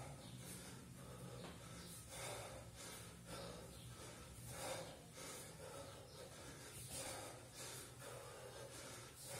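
A man breathing hard under sustained exertion, with a sharp, noisy breath roughly once a second in rhythm with repeated kettlebell cleans.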